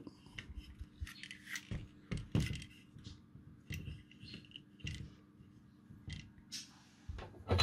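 Handling noise of a small circuit board being set into a spring-loaded PCB holder: light scattered clicks and scrapes, with a louder knock near the end.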